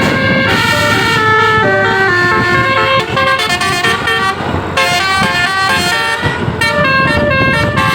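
Bus telolet horn, a Basuri multi-tone air horn, playing a quick tune of short stepped notes, with a couple of brief breaks.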